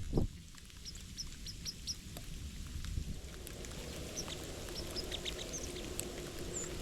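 Small birds calling in short, high chirps: a quick run of five about a second in, then scattered single chirps, over a low background rumble.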